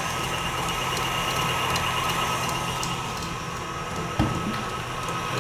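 Electric stand mixer running steadily, its beater creaming margarine and sugar, with a single knock about four seconds in.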